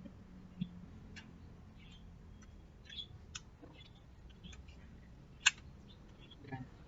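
Scattered small clicks and taps of electric fan parts being handled and fitted during a repair, with one sharp click about five and a half seconds in.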